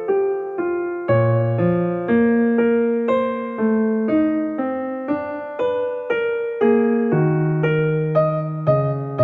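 Background music: a slow, gentle keyboard piece on piano or electric piano, with notes struck about twice a second over lower notes, each fading away after it is played.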